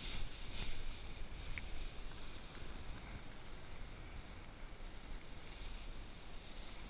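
Wind buffeting the microphone of a paraglider's harness-mounted action camera: a steady low rumble of airflow as the pilot spins in SAT and helicopter manoeuvres, with a few louder gusts or rattles in the first second.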